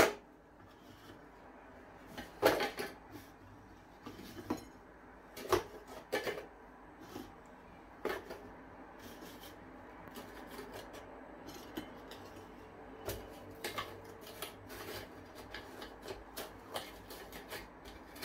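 Digestive biscuits being dropped and stacked into the plastic bowl of a Kenwood food processor: irregular light clacks and scrapes, with a sharp knock right at the start and another louder one about two and a half seconds in.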